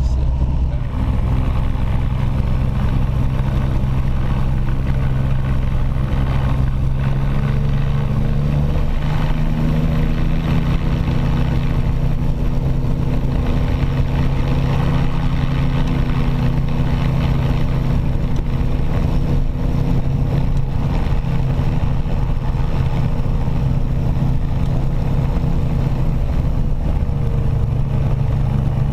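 Sling light aircraft's piston engine and propeller running steadily; the engine note steps up in pitch about eight to nine seconds in and then holds.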